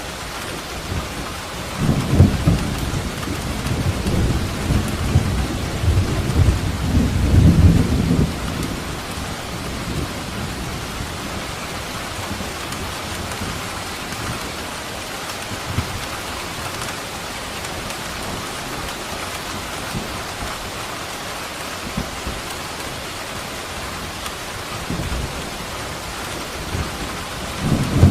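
Steady rain with rolling thunder. A long, low rumble of thunder runs from about two seconds in to about eight seconds, and another rumble begins near the end.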